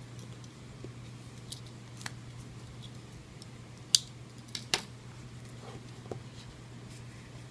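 A few sharp clicks and taps from handling and opening an iPhone 6 Plus retail box, the loudest about four seconds in, over a steady low hum.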